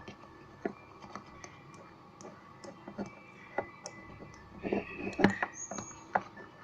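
Spoon stirring a lotion mixture in a bowl: irregular clicks and taps of the spoon against the bowl, with a denser run of knocks and scraping about five seconds in.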